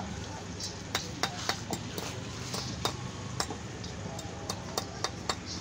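Carpenter's pincers working on nails in a wooden frame: irregular, sharp metallic clicks and clinks, about a dozen of them.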